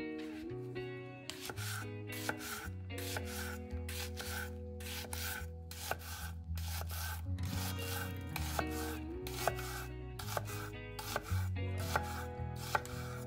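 Kitchen knife cutting vegetables on a cutting board in a steady run of sharp cuts, about two to three a second, over soft background music.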